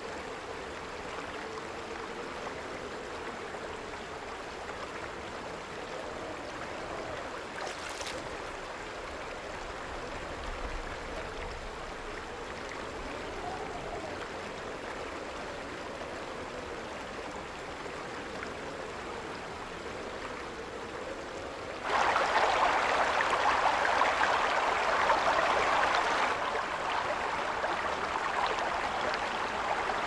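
Stream water running steadily, with a single faint click about a quarter of the way in. About three-quarters of the way through the rushing suddenly gets much louder for a few seconds, then settles a little lower.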